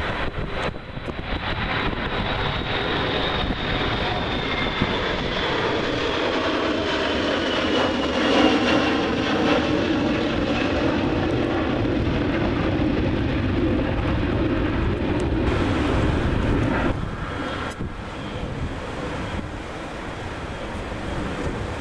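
Airbus A320-family jet airliner climbing out overhead, its engines roaring with a high whine that slowly falls in pitch as it passes. About 17 seconds in, the roar drops away abruptly, leaving quieter wind noise on the microphone.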